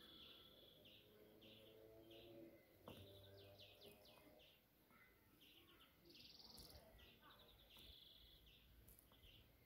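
Faint birds chirping in the background: short repeated chirps and a few quick trills, over otherwise near silence.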